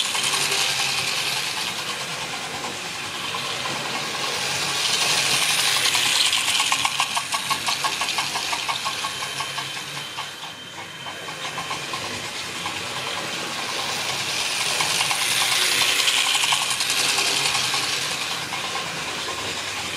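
Hornby 00-gauge model steam locomotive running around the track: its small electric motor whirs and its wheels rattle over the rails. It grows louder as it passes close by, about five seconds in and again about fifteen seconds in, with rapid even ticking on the first pass.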